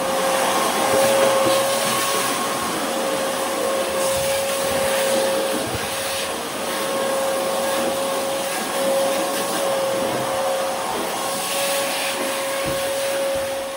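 Canister shop vacuum running steadily, a constant rush of air with a steady whine, as the floor is vacuumed clean of debris.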